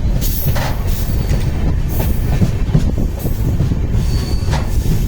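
Train running past on the rails: a steady, loud rumble of wheels on track, with brief high wheel squeals, one more noticeable about four seconds in.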